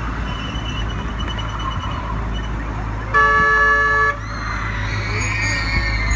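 Miniature railway train running along its track with a steady low rumble, and its horn sounding one steady blast of about a second midway through, the loudest sound.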